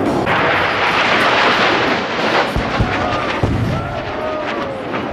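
Pyrotechnic charges of a wall-of-fire demonstration going off: a loud rushing blast for about two seconds, then a few deep booms.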